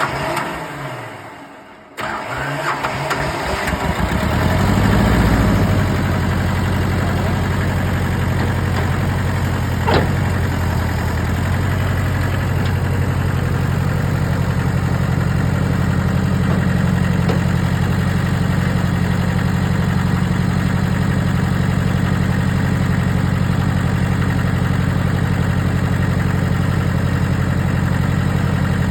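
Massey Ferguson 205 compact tractor's diesel engine being started: the starter cranks it for a couple of seconds, it catches and comes up to speed, then idles steadily. A single sharp click sounds partway through the idle.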